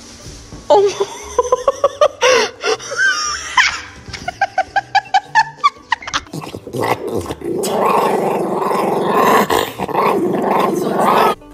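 Dogs vocalizing across several short clips: pitched whines that rise and fall, then a run of short quick yips, then a long, rough, growl-like sound.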